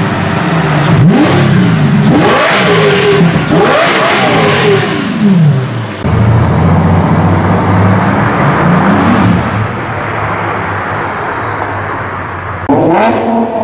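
Sports car engines being revved: several quick blips in which the pitch climbs and falls, then a steadier run, and near the end an abrupt switch to another car's sharp revving.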